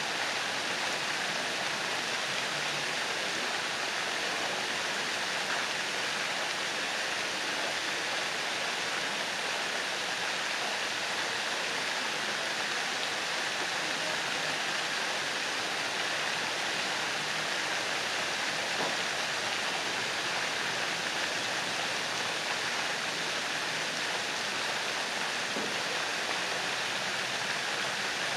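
Fountain jets spraying up and falling back into a pond, a steady rush of splashing water.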